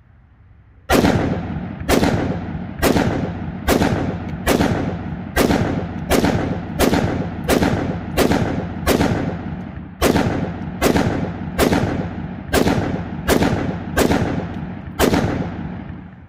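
Ruger SFAR semi-automatic .308 rifle fired in a steady string of about eighteen shots, roughly one a second, each crack followed by a short echo.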